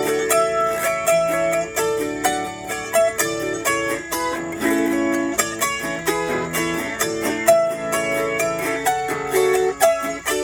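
Autoharp played as an instrumental tune: a quick, steady run of plucked strings picking out a melody over ringing chords.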